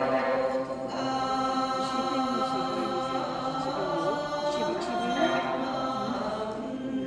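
A group of voices singing a Miyako Island folk song in unison, holding long drawn-out notes, accompanied by sanshin.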